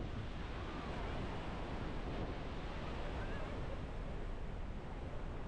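Steady roar of rushing water from a waterfall.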